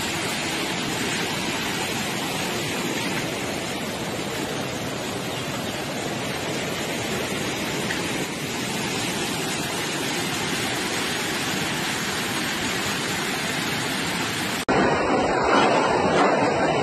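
Fast-flowing floodwater rushing past, a steady loud rush of water. Near the end it cuts off abruptly and a louder, different noise takes its place.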